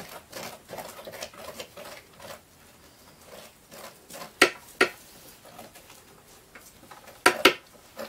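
A spoon scraping seeds and stringy pulp out of a halved pumpkin in a quick run of strokes, then two pairs of sharp knocks as the spoon is tapped against the blender jar.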